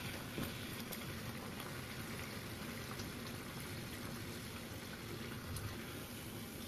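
Bhatura deep-frying in hot oil in a pan: a steady bubbling sizzle, with a few faint taps of a slotted spoon.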